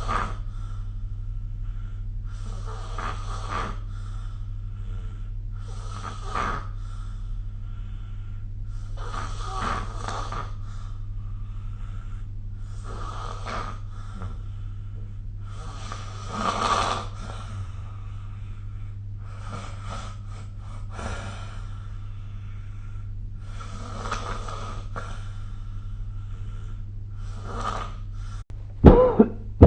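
A sleeping person snoring, one snore every three to four seconds, over a steady low hum. Near the end comes a louder, sharper burst, the loudest sound here.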